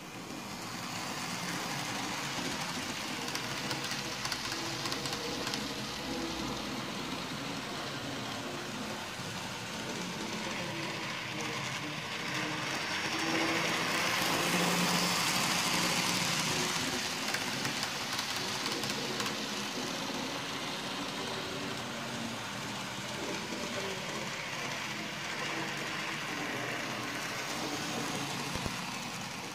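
Graham Farish N gauge Class 56 model diesel locomotive running with its coaches: the steady whir of its electric motor and its wheels running on the track, loudest about halfway through as it passes close by.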